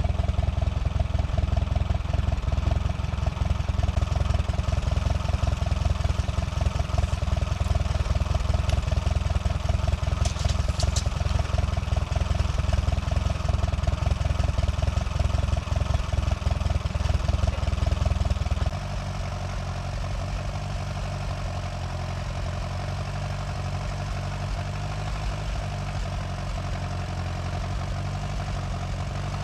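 Portable band sawmill's engine running at high speed under load, then dropping to a lower, steadier idle about two-thirds of the way through.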